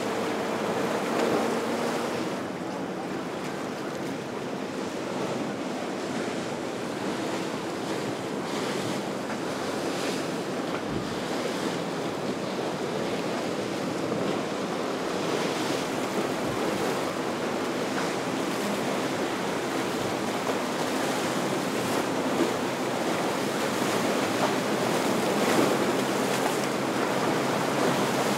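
Steady rush of ocean surf and wind, with wind buffeting the microphone. A boat engine is heard faintly at the start and fades out within about two seconds.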